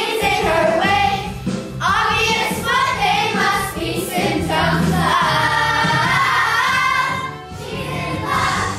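A group of children singing a Broadway show tune in unison over instrumental accompaniment, with a brief break between phrases near the end.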